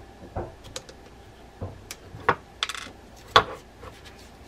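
Small metal clicks and taps of a screwdriver and a tiny screw being fitted into the metal body of a Daiwa BG90 spinning reel. It is a string of sharp ticks with a brief rattle in the middle, the loudest click coming about three quarters of the way through.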